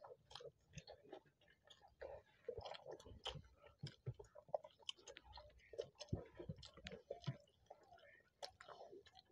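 Faint, close-up chewing and wet mouth sounds of people eating pea-stuffed fried bread and potato curry by hand, with many small irregular clicks.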